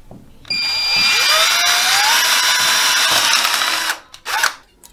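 Power drill boring a pilot hole into a plastic toilet closet flange: the motor spins up with a rising whine about half a second in, runs steadily for about three seconds, then stops, with one short burst of the drill just before the end.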